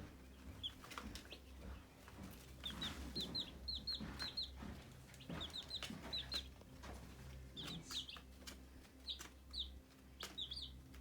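A brood of Red Star chicks peeping: short high chirps in quick runs of several, repeating throughout, with scattered light clicks over a low steady hum.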